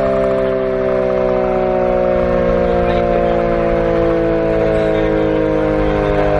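Vintage WWII mechanical air raid siren sounding a loud, chord-like wail of several tones together, its pitch slowly and steadily falling.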